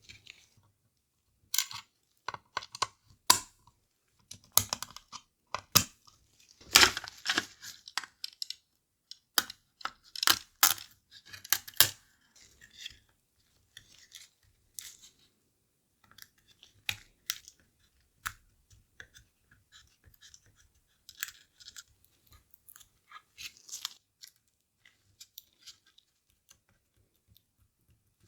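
Irregular clicks, taps and scrapes of small plastic parts being handled and fitted together as a Nintendo DSi XL is reassembled into a new shell, busiest in the first half and sparser later.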